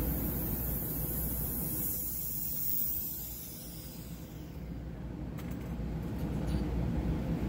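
Air hissing into a rotary evaporator as its vent is opened to release the vacuum, fading out over the first few seconds, over a low steady hum. A few light clicks of glassware and clip follow as the flask assembly is taken off.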